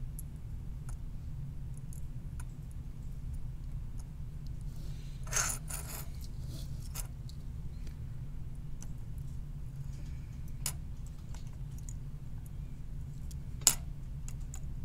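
Small handling sounds of hand soldering a circuit board: faint scattered clicks and taps of the board, iron and solder wire over a steady low hum. A brief scrape comes about five seconds in and a single sharp click near the end.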